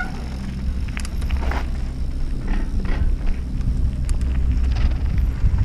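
Mountain bike rolling down a trail: a steady low rumble from tyres and wind, with scattered clicks and rattles from the bike.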